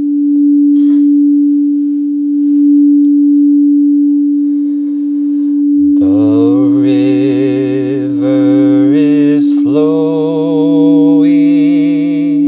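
A singing bowl ringing with one steady tone that swells and fades slowly. About halfway through, a low voice joins with two long, held chanted notes.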